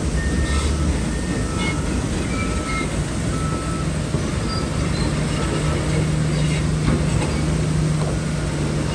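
Heavy diesel earthmoving machinery running steadily, with an engine hum and irregular metallic clanks and squeaks typical of a bulldozer's steel tracks.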